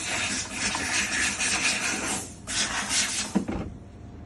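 Handheld steam cleaner jetting steam with a steady hiss. The hiss breaks off about two seconds in, comes back for under a second, then stops, followed by a short knock.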